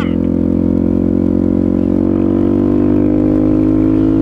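Suzuki DR-Z400SM supermoto's single-cylinder four-stroke engine pulling steadily at road speed, its pitch creeping up a little over the first couple of seconds and then holding, with wind rush over the helmet camera.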